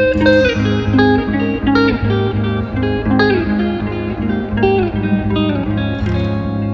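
Background music: a plucked guitar melody, notes about every half second, over a sustained low bass.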